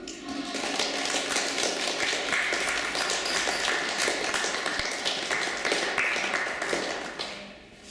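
Audience applauding. The clapping swells in just after the start and dies away near the end.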